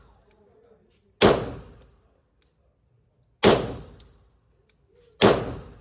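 Three 9mm pistol shots from a Sig Sauer P320 M17, fired about two seconds apart while shooting a five-round group, each with a short echoing tail.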